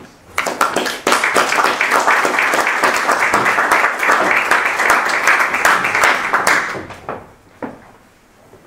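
Audience applauding, rising quickly just after the start and dying away about two seconds before the end.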